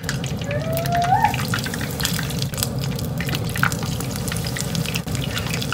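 Chicken wings deep-frying in a pot of hot oil: a steady sizzle with irregular crackles and pops, over a steady low hum. A short rising tone sounds about a second in.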